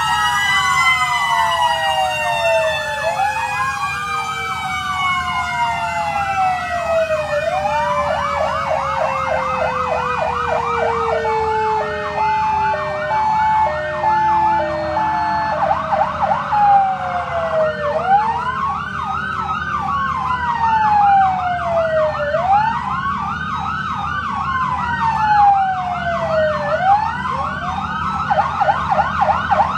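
Several fire-truck sirens sounding at once: slow wails rising and falling every few seconds over a rapid yelp, with one siren gliding down in pitch early on. A brief pulsing steady tone comes in the middle, and a low engine rumble runs underneath.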